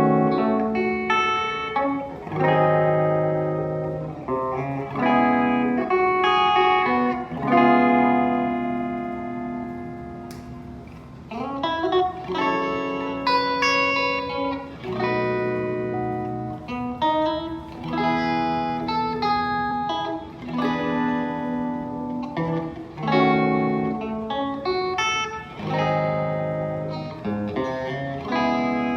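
Ibanez RG421HPFM electric guitar played on a clean tone with a little reverb: picked chords and broken-chord runs, with one chord left ringing and slowly fading near the middle.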